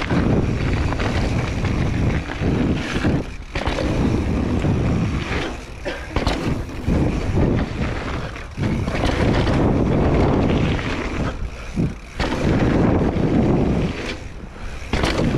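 Mountain bike riding fast down a dry dirt trail: wind buffeting the chest-mounted action camera's microphone over the rumble of tyres and the rattle of the bike, surging and easing with speed and dropping off briefly several times.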